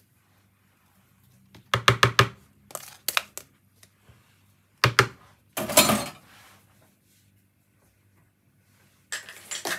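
Clusters of short clicks and taps from seasoning packets and containers being handled over the dish. There is a quick run of taps about two seconds in, a single sharp tap near five seconds, a longer clatter just before six seconds, and another run of taps near the end.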